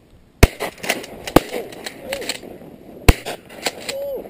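A volley of shotgun shots from several duck hunters firing at once. Three loud blasts come about half a second, one and a half seconds and three seconds in, with fainter, more distant shots between them.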